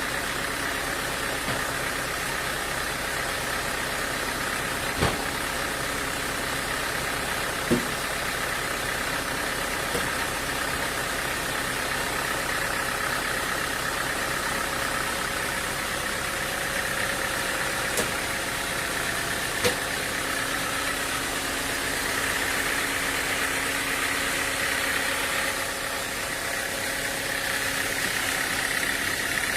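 Sawmill machinery running steadily with an engine hum, broken by a few short sharp knocks spread through.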